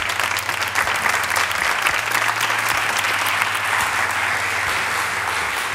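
Studio audience applauding steadily, many overlapping claps, fading out near the end.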